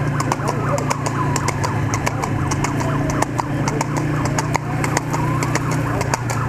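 A horse's hooves beating fast on a paved street, over the steady hum of a motorcycle engine running alongside. A slow rising and falling wail sounds in the background.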